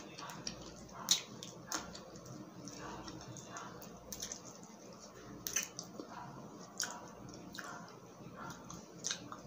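Close-up wet chewing and mouth sounds of eating saucy shrimp and rice by hand, with scattered sharp lip smacks and finger sucks.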